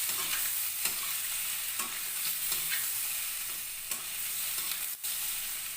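Potato-and-egg curry sizzling in a frying pan while it is stirred, with a spatula scraping the pan about once a second.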